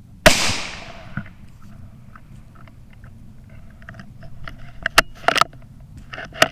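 A single .17 HM2 rimfire rifle shot about a quarter second in, with a fading echo through the woods. Several sharp clicks and rustles follow near the end.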